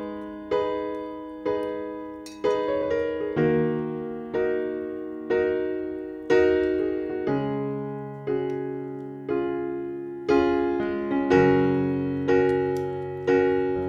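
Background music: a piano-like keyboard plays slow chords, about one a second, each struck sharply and left to fade.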